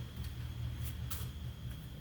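Chamberlain B750T garage door opener's motor running with a steady low hum, with a few faint clicks.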